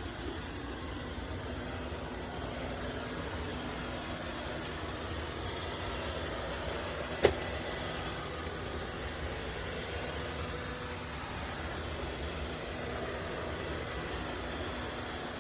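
Steady machine hum with a faint low tone underneath, and one sharp click about seven seconds in.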